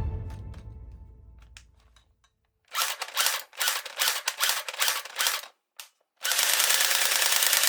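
Toy gun firing: about ten quick single shots, each a sharp crack, follow one another. Then, after a click, a continuous full-auto burst runs for nearly two seconds. Before that, the last note of background music dies away.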